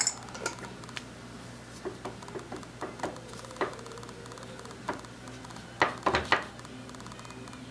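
Metal clicks and knocks from a Hendey lathe's apron as its half-nut lever is turned by hand, with a quick cluster of louder clunks about six seconds in.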